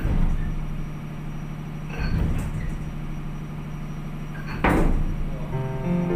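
Close handling knocks and bumps, three of them, loudest the last, over a steady low hum. Background music comes in near the end.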